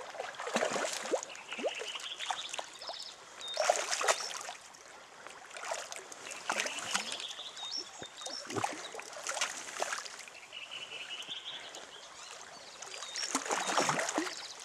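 River water splashing in irregular bursts over the steady rush of the current, loudest near the end. A few faint, short rising whistle-like tones sound in between.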